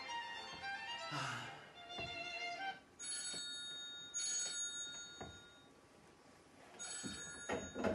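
A short fiddle-like tune, then a telephone ringing in a double-ring pattern from about three seconds in: two rings close together, a pause, and another ring near the end.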